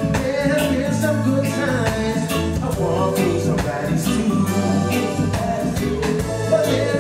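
A live band playing with drums and keyboards, and singing over it from the male lead singer.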